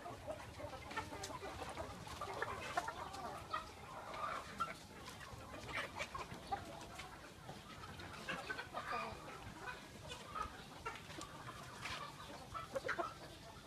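A flock of half-grown Khmer village chickens clucking, many short calls overlapping throughout.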